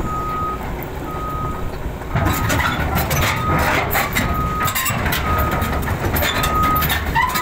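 Caterpillar tracked excavator's diesel engine running as the machine travels, its travel alarm beeping about once a second. From about two seconds in the engine grows louder under load, with clanking from the steel tracks as the excavator drives onto the lowboy trailer.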